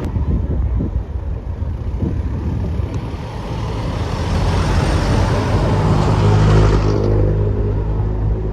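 A road vehicle passing close by: its engine and tyre noise swells to a peak about six and a half seconds in, then drops away. Under it, from a little past halfway, a large engine runs with a low steady hum.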